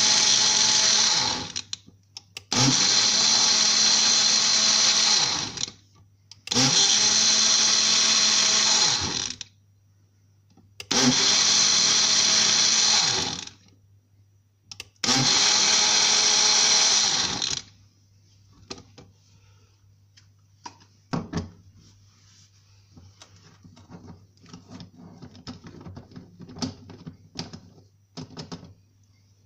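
Small push-down personal blender running in five bursts of two to three seconds each, with short pauses between. After the last burst the motor stops, leaving light knocks and clicks as the cup is handled.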